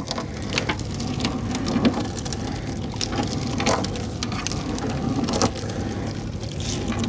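Rain falling in a storm, with irregular sharp taps of drops striking close by, over a steady low hum.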